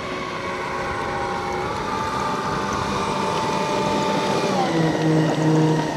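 Radio-controlled model twin jet taxiing, its engines giving a steady whine made of several tones. About four and a half seconds in, the pitch steps lower as the throttle comes back.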